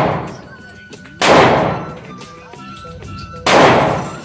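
Two pistol shots from a Canik TP9SF 9mm, about two seconds apart, each with a long reverberant tail off the walls of an indoor range; the tail of an earlier shot fades at the start. Background music plays underneath.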